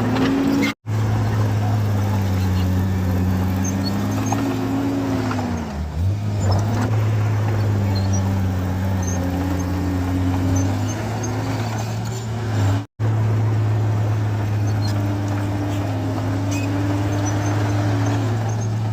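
Bulldozer's diesel engine running under load, its pitch rising and falling repeatedly as it works. The sound cuts out abruptly twice, briefly, about a second in and about two-thirds of the way through.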